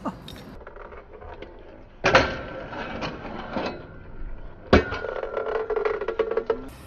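Stunt scooter tricks: two sharp clacks of the scooter hitting hard ground or a metal rail, one about two seconds in and one near five seconds. The first is followed by scraping and rolling. The second is followed by a steady grinding hum of the deck or wheels sliding and rolling on the surface.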